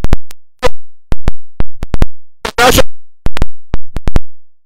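The audio is cutting in and out: a rapid, irregular string of short pops, each a split-second fragment of music or voice, broken by dead silence. About two and a half seconds in, one longer snatch of voice gets through.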